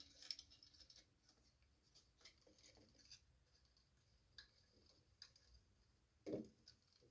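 Near silence with faint scattered clicks and ticks from small parts being handled as a governor rod is twisted into a carburetor linkage, and a brief soft thump about six seconds in.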